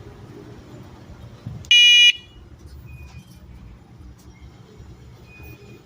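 Battery-powered electronic bike horn giving one short, loud, high-pitched beep about two seconds in.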